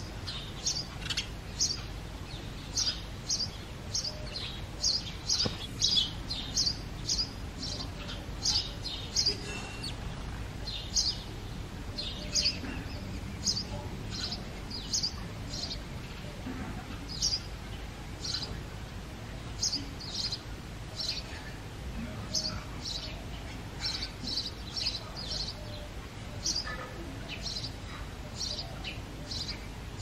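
Male house sparrow chirping, short sharp chirps repeated about one to two a second with brief pauses: the breeding-season song of a male sparrow.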